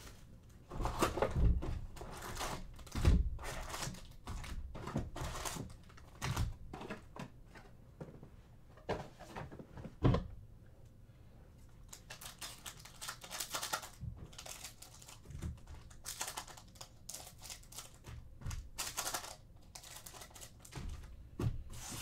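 Foil trading-card packs from a Panini Prizm hobby box crinkling as they are handled and set down on a table, with scattered clicks and a few louder knocks. Near the end a pack is handled with scissors to be cut open.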